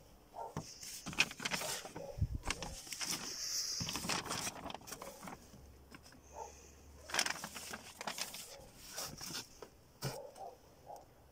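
Irregular rustles and knocks of paper drawings and stiff boards being shuffled and moved about by hand.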